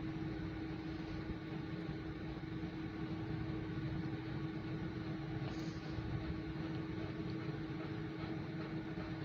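Panasonic microwave oven running while heating a mug: a steady hum with the whir of its fan, unbroken throughout.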